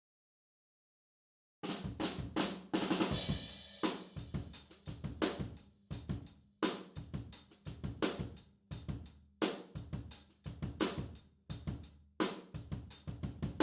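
Acoustic drum kit playing: kick, snare, hi-hats and cymbals, heard only through a Blumlein stereo pair of room microphones. The kit starts about two seconds in, after silence, and keeps a steady beat.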